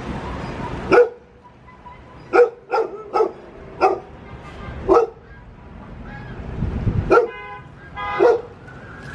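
A dog barking: single sharp barks at uneven intervals, about eight in all.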